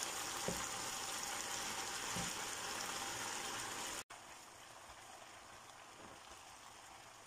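Frozen shredded cabbage sizzling as it lands in a hot pan of frying chicken gizzards, onion and carrot: a steady hiss that cuts off suddenly about four seconds in, leaving only a faint hiss.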